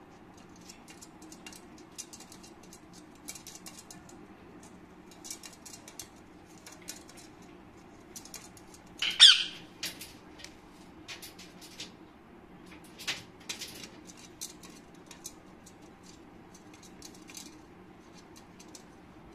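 Rose-ringed parakeet in a wire cage: scattered light clicks and taps of beak and feet on the wire and perch, with one loud, short, shrill squawk about nine seconds in and a brief flurry of wing-flapping around it. A low steady hum runs underneath.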